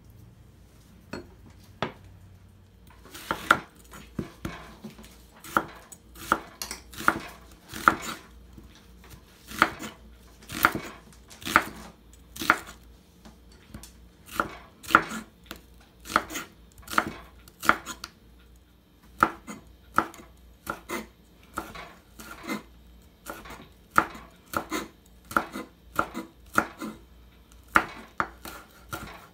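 Kitchen knife slicing through tofu, onion and green chili peppers onto a wooden cutting board: a series of knocks on the board, a few faint ones at first, then about one a second.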